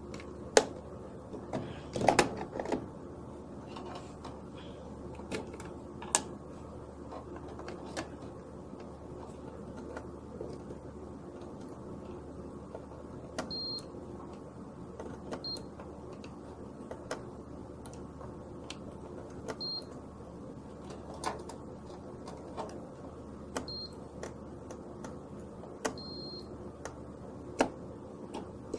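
Clamp multimeter's continuity beeper giving five short high beeps, each the sign of a closed circuit between the test probes, among sharp clicks and knocks of the probes and hands against the contactors and breakers.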